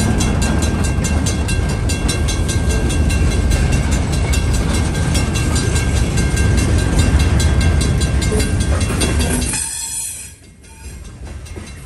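Freight train of boxcars rolling past close by: a loud, steady rumble of wheels on rail with rapid, even clicking and a faint high ring. The noise drops suddenly to much quieter near the end.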